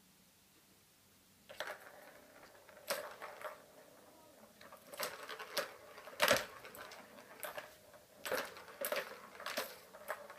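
Plastic balls rattling and clicking around the tracks of a three-tier plastic cat tower toy as a cat bats at them, in irregular bursts that start about one and a half seconds in; the loudest clatter comes a little past the middle.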